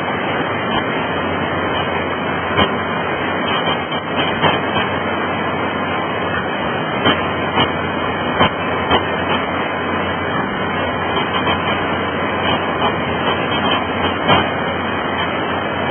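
Fast floodwater in a river in spate, rushing steadily through whitewater rapids, with scattered short crackles over the rush.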